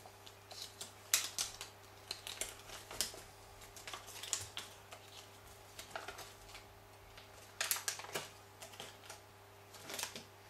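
A small paper instruction booklet being opened and handled: soft, irregular rustles and light clicks of paper coming in a few short bunches, over a faint steady hum.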